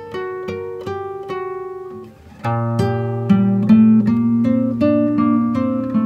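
Background instrumental music of plucked-string notes picked one after another. After a brief dip about two seconds in, it comes back fuller, with low notes underneath.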